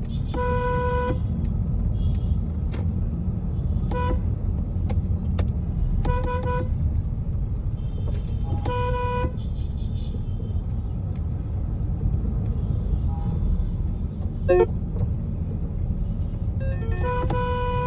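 Road traffic: a steady low rumble of a moving vehicle, with car horns honking in short blasts every few seconds, and a longer horn blast near the end.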